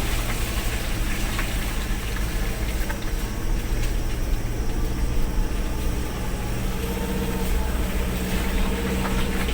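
Four-wheel-drive truck engine running steadily in low range while climbing a bumpy, muddy track laden with about 1.8 tonnes of palm fruit, with scattered light knocks and rattles.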